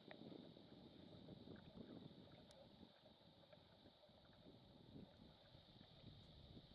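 Faint, steady hiss from a marine VHF radio held open because another radio's transmit button is stuck down, over a low rumble of wind.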